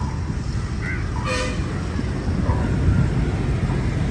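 Steady low rumble of vehicle engines and traffic, with a short horn toot about a second and a half in.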